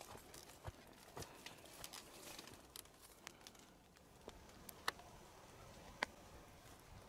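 Faint footsteps crunching irregularly on a path, with two sharper clicks about five and six seconds in.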